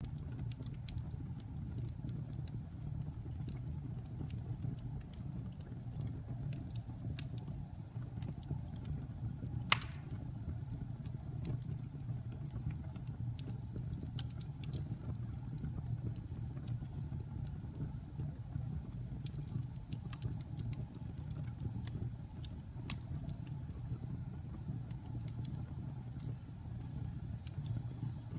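Wood fire in a fireplace crackling: scattered sharp pops and snaps over a steady low rumble, with one louder pop about ten seconds in.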